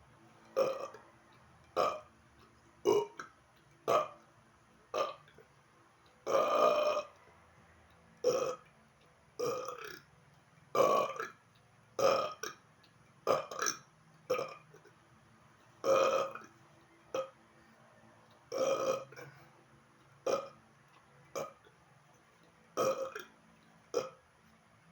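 A man burping on purpose, over and over: about twenty short belches roughly a second apart, with a longer drawn-out one about six seconds in.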